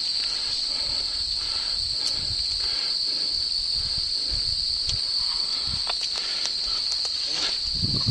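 Crickets chirring in a steady high-pitched chorus, with faint scattered clicks and rustling that grows louder near the end.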